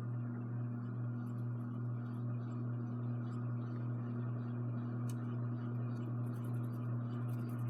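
Evergo 52-inch hugger ceiling fan running on medium speed: a steady motor hum under an even rush of air from the blades.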